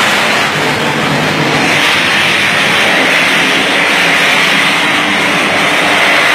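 Loud, steady hissing roar of an electrical short circuit arcing, growing stronger about two seconds in.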